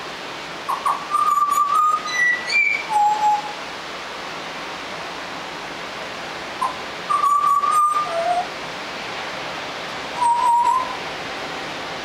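Juvenile Australian butcherbird practising its song: clear, flute-like whistled notes, each mostly held on one pitch. There is a burst of about five notes jumping between low and high pitches in the first few seconds, a pair of notes midway through and a single note near the end, with pauses between them. This halting, broken-up singing is a young bird still learning its song.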